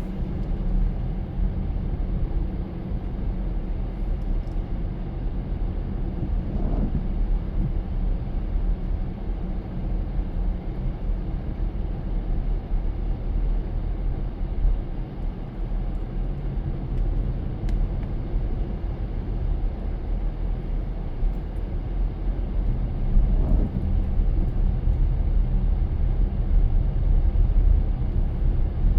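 Car driving steadily, a constant low rumble of engine and tyre noise, with a brief swell twice.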